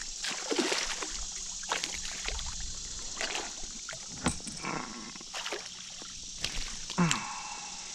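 Water splashing and sloshing as a small hooked fish thrashes at the surface and is scooped into a landing net beside a kayak, with scattered sharp clicks and knocks.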